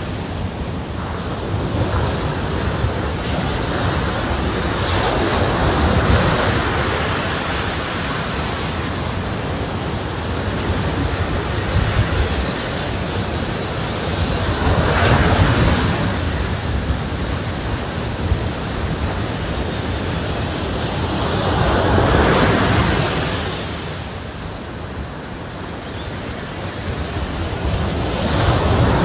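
Ocean surf breaking on the beach, swelling into a louder wash every several seconds, with wind rumbling on the microphone.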